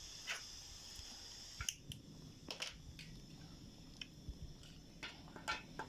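Scattered light clicks and taps of kitchen utensils and cookware being handled. A faint hiss runs through the first second and a half.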